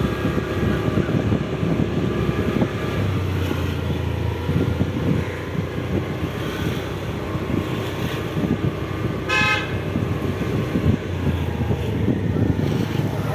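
Wind and road rumble from riding a two-wheeler through traffic, steady throughout, with a vehicle horn tooting once, briefly, about nine seconds in.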